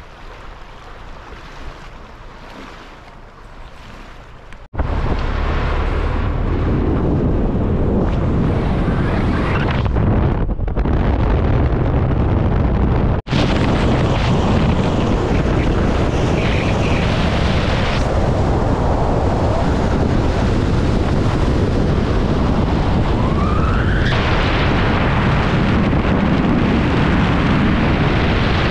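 Wind buffeting the microphone, a dense low rumble that jumps suddenly louder about five seconds in and stays strong, with a brief break about thirteen seconds in.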